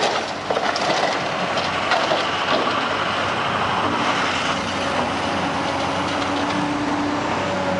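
Caterpillar 345CL excavator's diesel engine running hard, with brick and timber rubble crunching and clattering, the knocks thickest in the first half. A steady whine comes in past the middle and stops shortly before the end.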